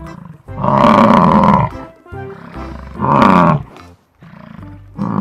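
Bison bellowing: a long, loud roaring bellow starting about half a second in, a shorter one around three seconds, and a third starting at the very end, over background music.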